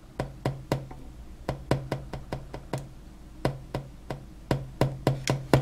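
Fingertip tapping on the face of a Heathkit IM-13 VTVM's analogue meter, about four light taps a second in three short runs, to make the needle settle at its true reading during DC calibration.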